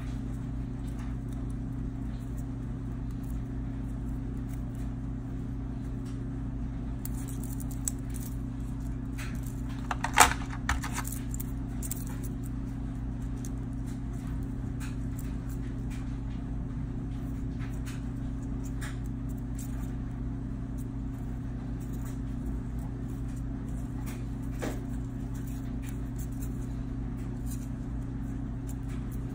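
Snap-on steel feeler gauge blades on a metal ring clinking and jingling as they are handled and fanned out, with scattered light clicks and a louder cluster of clinks about ten seconds in. A steady low hum runs underneath.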